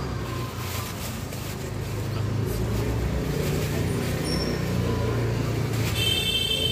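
Steady low rumble of street traffic with an engine running nearby, under scattered crowd chatter. Near the end a brief high-pitched tone sounds.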